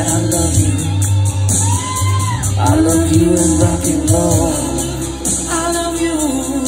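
Loud amplified music with a voice singing over a heavy bass line, heard from the audience in front of stage speakers. The singer holds one long note about two seconds in.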